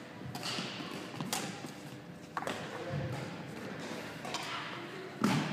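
Badminton rally: several sharp hits of racket strings on the shuttlecock, with players' footsteps on the wooden court floor in between.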